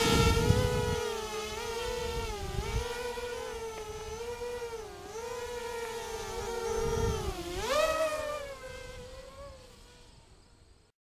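HobbyKing FPV250 racing quadcopter's electric motors and propellers whining, the pitch wavering up and down with the throttle. There is low buffeting on the microphone as it passes overhead at the start, and a sharp rise in pitch near the eight-second mark as it speeds away. The whine then fades out as it flies off into the distance.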